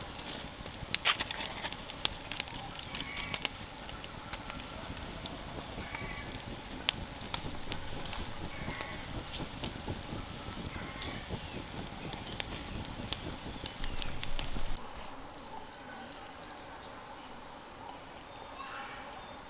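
Steady hiss with frequent sharp crackling pops. About three-quarters of the way through it cuts off abruptly to a quieter, evenly pulsing high insect trill.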